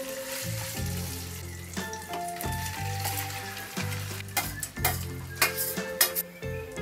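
Maggi noodle omelette frying and sizzling in oil in a pan on a gas stove, with several sharp clinks of a steel plate against the pan in the second half as it is used to turn the omelette.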